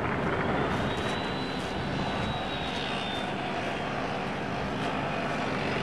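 Steady rumble of an aircraft passing overhead, with a faint high whine that rises about half a second in, holds for a couple of seconds and fades.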